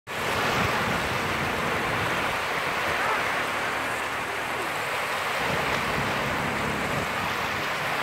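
Small sea waves breaking and washing up over a sand beach, a steady, even rush of surf.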